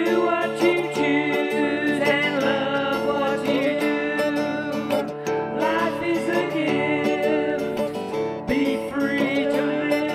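Music led by plucked acoustic guitar, playing steadily.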